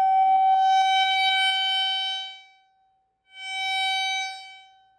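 A single loud, steady tone from a speaker driven very hard at a wine glass's resonant frequency. It is distorted, with many overtones, and crackles rapidly during the first second and a half. It fades out around two and a half seconds in, comes back about a second later, and fades again, while the glass holds.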